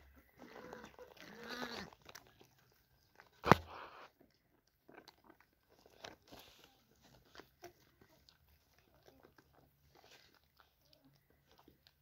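Lambs eating grass and grain from feed tubs: a run of small irregular crunching and chewing sounds, with one sharp, loud knock about three and a half seconds in.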